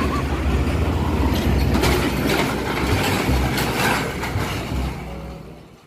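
A heavy vehicle rumbling, with scattered rattling clanks, fading out near the end.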